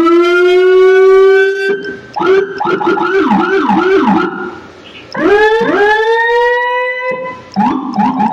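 Whelen electronic vehicle siren cycled through its tones from the handheld controller. First comes a quick rising tone held steady for under two seconds. Then a fast yelp of about two to three up-and-down sweeps a second, and after a short pause a slower rising wail about five seconds in, then short quick chirps near the end.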